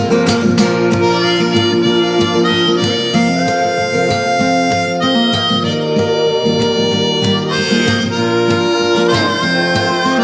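Folk song instrumental break: a harmonica plays held, sliding melody notes over acoustic guitar accompaniment.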